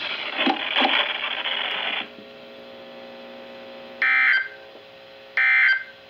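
Weather radio receiver hiss that cuts off about two seconds in, leaving a faint hum, then two short electronic beeps from the weather radio about a second and a half apart.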